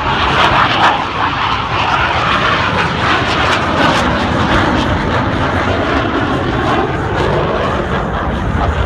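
Jet aircraft flying past: a loud, steady engine roar whose pitch shifts slowly as the aircraft moves.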